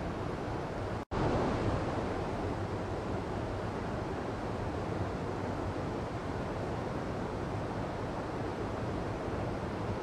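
White water of a boulder stream rushing steadily. The sound cuts out completely for a split second about a second in, then carries on as before.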